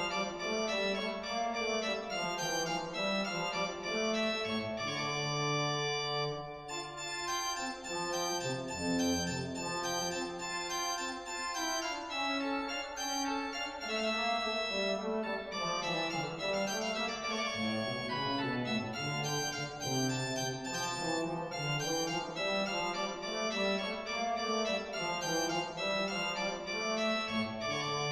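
Pipe organ playing a French Baroque noël: quick, even runs of notes over a slower-moving bass line, on a Hauptwerk virtual organ built from samples of the Father Willis organ of Hereford Cathedral.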